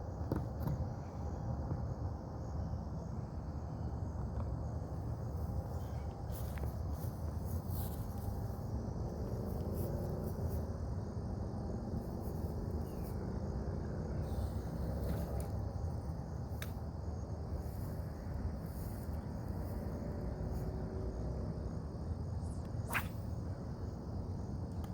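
Steady chorus of insects, a continuous high buzz, over a low rumble, with scattered short clicks.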